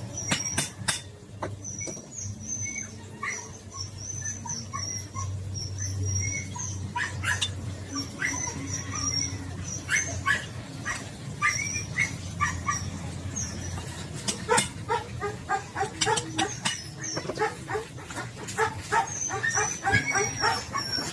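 A dog barking repeatedly, the barks coming thicker in the second half, with high bird chirping and a few sharp knocks.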